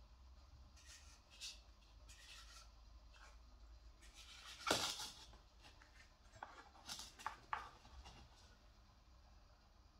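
Faint, scattered rustling and scraping noises, with one louder rustle a little under five seconds in and a few short scrapes a couple of seconds later.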